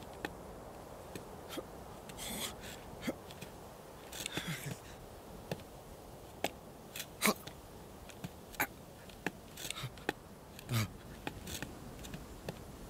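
A sheep's hooves shifting on a rock: scattered soft clicks and scrapes, with a couple of brief rustles, over a faint steady hiss.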